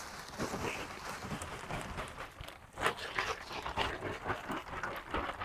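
Irregular rustling, scraping and gritty clicks of calcined clay granules and their bag being handled.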